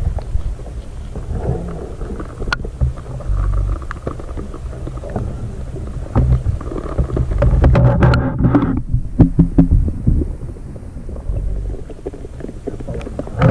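Muffled low rumble of water moving, heard through an underwater camera, with scattered knocks, a single sharp click about two and a half seconds in and a busier cluster of knocks around eight seconds.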